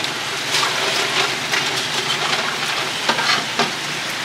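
Steady hiss of outdoor street noise, broken by several short sharp knocks and clicks, with a quick cluster of them near the end.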